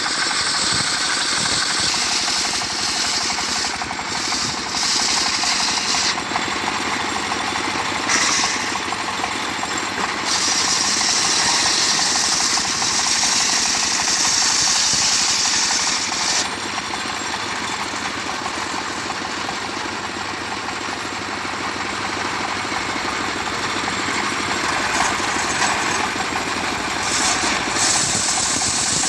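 Engine-driven homemade circular sawmill running steadily while sawing a mango log, with a higher hissing sound that comes in and stops sharply several times.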